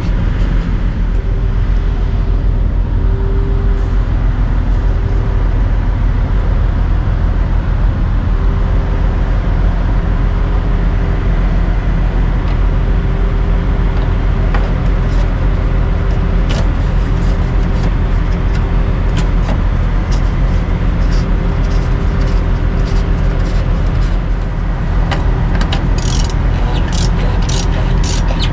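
Steady low rumble of a nearby idling engine, with a faint hum that comes and goes. Near the end, a quick run of light clicks and knocks.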